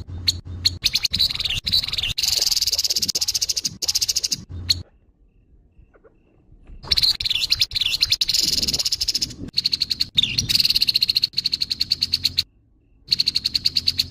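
Grey-headed babbler giving its harsh call: rapid, rattling chatter in three bursts of several seconds each, separated by short pauses.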